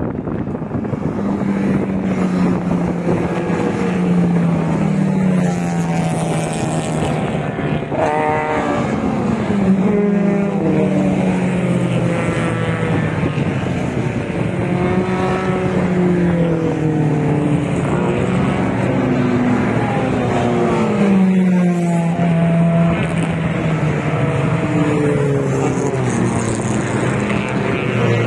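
Several racing cars' engines passing one after another on a circuit straight, their engine notes overlapping and rising and falling in pitch as each car goes by.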